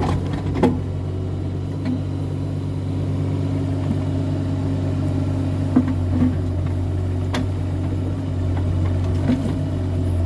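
Kubota mini excavator's diesel engine running steadily, with a few light clicks and knocks over it.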